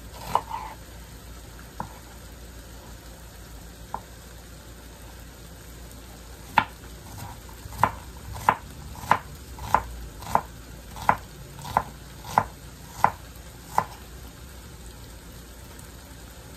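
Kitchen knife chopping a red onion on a wooden cutting board: a few scattered cuts, then a steady run of about a dozen sharp knife strikes on the board, roughly three every two seconds, before it stops. Pork frying in a pan sizzles steadily underneath.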